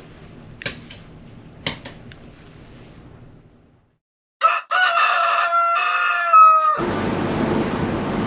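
Rooster crowing once, a long cock-a-doodle-doo used as a wake-up sound effect, about halfway through after a moment of silence. Before it, two light clicks as the cabin's wall lamp is switched off; after it, a steady rush of wind and sea on a ferry's open deck.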